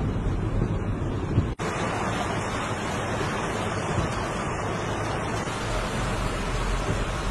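Steady rushing noise of floodwater and heavy rain, deeper and rumbling for the first second and a half. The sound drops out for an instant about one and a half seconds in, then carries on as a brighter, hissing rush.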